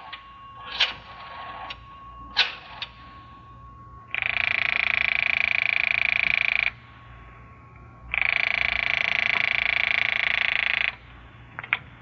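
Telephone bell ringing twice, each ring about two and a half seconds long with the bell's rapid rattle, a second and a half apart. A few scattered clicks come before the first ring, and a couple of clicks come just before the end.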